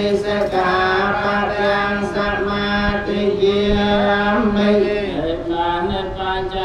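Theravada Buddhist monks chanting in Pali together, amplified through a microphone, in a steady, mostly level-pitched recitation with long held tones.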